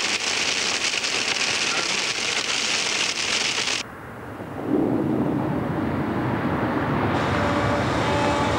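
Heavy rain hissing, cutting off abruptly about four seconds in; a low rumble of thunder then builds and holds, with a softer hiss of rain returning near the end.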